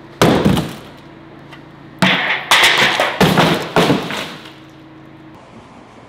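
Cardboard box thrown onto a concrete floor: one loud thud, then a quick run of four more thuds and scuffs about two seconds in.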